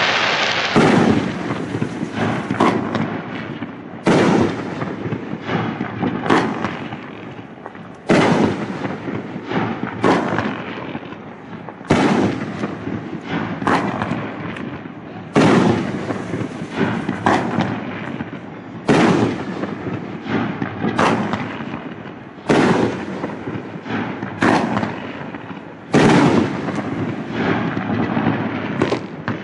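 Consumer aerial fireworks going off in a steady sequence, a loud bang about every two seconds, each followed by a long rumbling echo that fades before the next.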